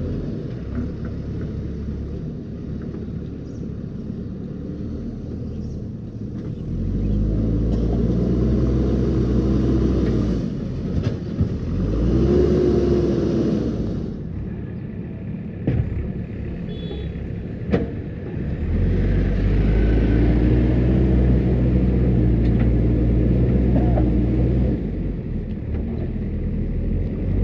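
JCB 3DX backhoe loader's diesel engine working, its revs and load rising in three surges, the longest in the second half, and dropping back to a lower run between them. A few sharp knocks in between.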